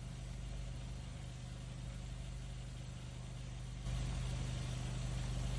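A motor running with a steady low hum, getting louder about four seconds in.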